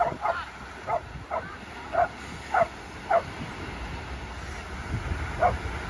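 A dog barking in short single barks, about six in quick succession and one more after a pause, over a low rumbling background that grows near the end.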